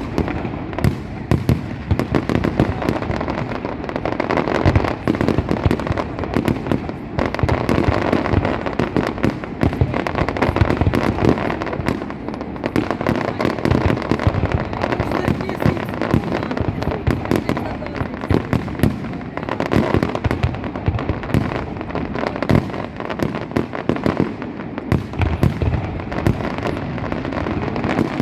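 Fireworks going off in a dense, continuous barrage of bangs and cracks, one on top of the next.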